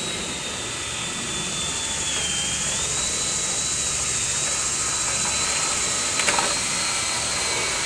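Dryer-vent cleaning blower or vacuum running steadily: loud rushing air with a high motor whine that sags briefly in pitch about two and a half seconds in. A short knock about six seconds in.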